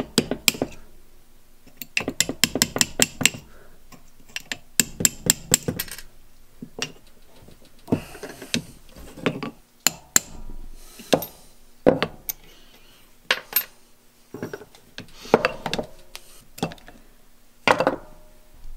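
Rusty steel roller chain and hand tools clinking and rattling against a small steel vise as the chain is handled and its master link worked at: irregular sharp metallic clicks and taps, some in quick clusters.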